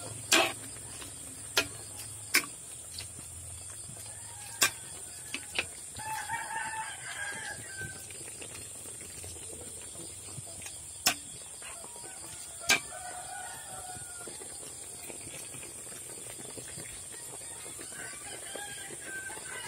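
A rooster crowing in the background about six seconds in, with shorter fowl calls later, over a steady high hiss. Several sharp clicks stand out.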